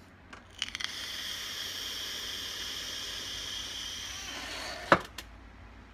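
Long draw on a Vpark mini sub-ohm e-cigarette: a steady hiss of the firing coil and the air through the tank for about four seconds, then a short sharp click about a second before the end.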